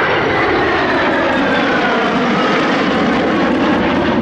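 Jet engines of a close three-ship formation (Fiat G.91, AMX and Tornado) flying past: loud, steady jet noise with a whine that slowly falls in pitch as they go by.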